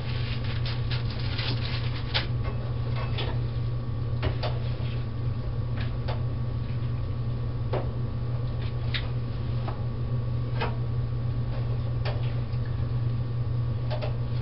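Wooden spoon knocking and scraping against a skillet as pasta is stirred, in scattered irregular clicks over a steady low hum.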